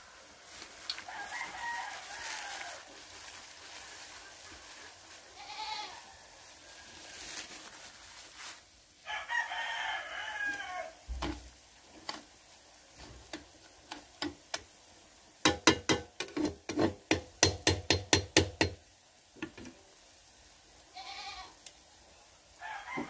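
Chickens calling now and then, a rooster crowing among them. Partway through comes a quick run of sharp knocks, about four a second for some three seconds, louder than the calls.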